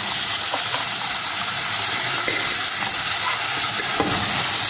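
Hot onion-and-spice masala in coconut oil sizzling with a steady hiss as cooked beef and its gravy are poured into the pan.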